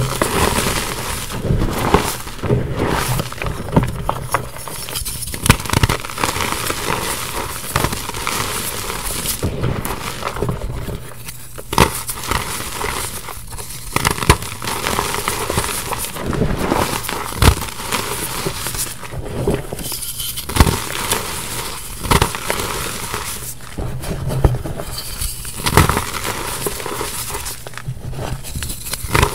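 Gym chalk reforms being crushed and crumbled in bare hands: a continuous dry crunching and crackling, with many sharp cracks as the pressed chalk lumps break apart.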